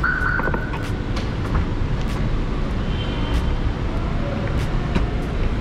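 Steady low rumble of road vehicle noise, with a few faint clicks and a short high tone at the very start.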